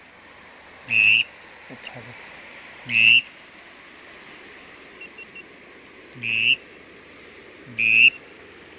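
Four short whistled calls, a bit under two seconds apart, over a faint steady background hiss.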